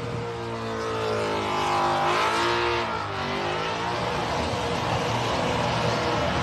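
Supercharged burnout car's engine held at high revs during a burnout, its rear tyres spinning in thick smoke; the engine pitch dips and climbs about two to three seconds in as the throttle is worked.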